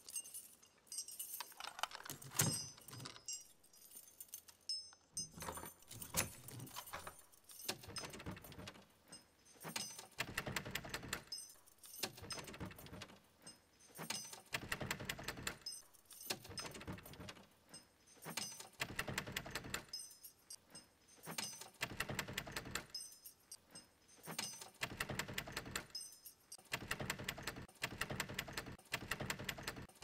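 A key rattling and turning in an old door lock, with clicks of the bolt and the door handle being tried, repeated over and over in short bursts every second or two.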